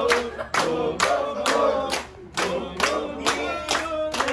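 A small group singing together while clapping in rhythm, about two to three claps a second.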